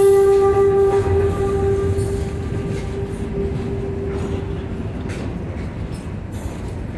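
Freight train cars rolling past with a low rumble of wheels on rail, and a steady single-pitched wheel squeal that fades away about five seconds in.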